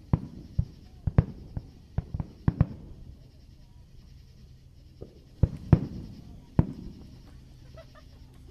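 Fireworks shells bursting during a grand finale: a quick run of sharp bangs with short echoing tails in the first three seconds, a lull, then a few more bangs, the loudest a little under six seconds in.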